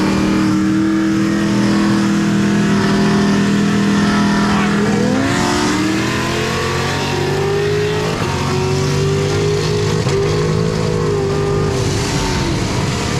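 Supercharged Camaro SS V8 through an AWE Touring cat-back exhaust with a deep note. It drones steadily, then about five seconds in the revs climb, stepping through a couple of shifts, and it holds at a higher pitch.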